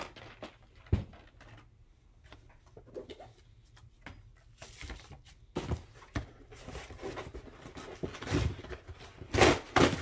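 A cardboard Priority Mail mailer being handled and pulled open: paper and cardboard rustling, scraping and tearing. It is sparse at first, with a single sharp knock about a second in, then gets busier and louder in the second half.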